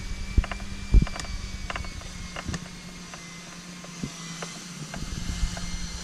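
Small clicks and knocks of an electrical plug being handled and fitted onto a CO2 solenoid valve, the loudest knock about a second in, over a steady low hum.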